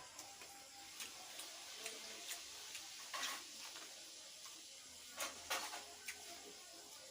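Close-miked eating sounds of chewing, with irregular short crackles and clicks, a few louder ones about three and five seconds in.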